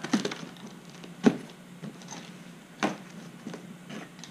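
A small blade cutting through packing tape on a cardboard box, with three sharp knocks and taps on the cardboard about a second and a half apart.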